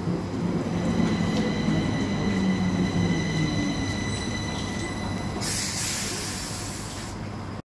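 Stockholm metro train running alongside the platform: a rumble with a steady high-pitched whine, slowly getting quieter. A hiss comes in about five and a half seconds in and stops shortly before the sound cuts off suddenly at the end.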